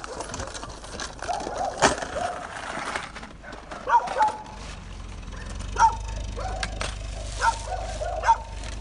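A dog barking repeatedly in short, sharp barks a second or two apart. A low steady hum comes in about halfway through.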